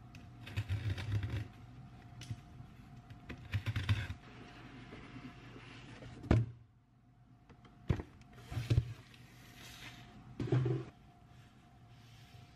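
Cardboard box being handled on a table: scraping and rubbing of the cardboard, with a sharp thump about six seconds in, the loudest sound, and a few lighter knocks later.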